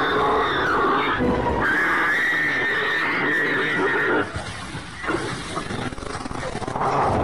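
Animals fighting, with a long high-pitched squealing call lasting about two and a half seconds that cuts off about four seconds in, followed by a quieter moment and then harsh calls again near the end.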